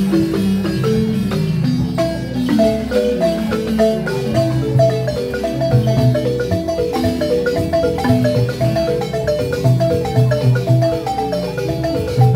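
Several Senufo balafons, wooden xylophones with gourd resonators, played together in a fast, repeating interlocking pattern of struck notes. Deep bass notes come back about every one to two seconds.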